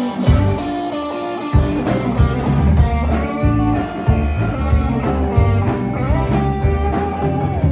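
Live blues-rock band playing an instrumental break: a lead electric guitar holds and bends notes over bass and drums, with the full rhythm section coming in heavier about a second and a half in.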